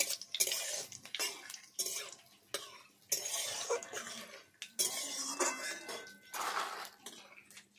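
A flat metal spatula scraping and clinking against a metal kadai in irregular strokes, stirring whole spices frying in mustard oil.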